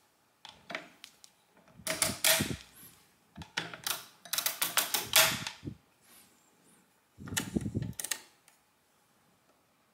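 1906 Odhner's Arithmometer pinwheel calculator being cleared by hand, making bursts of rapid metallic clicking and ratcheting from the carriage's wing-nut clearing handle. Near the end there is one more short clatter as the pinwheel setting levers are pushed back.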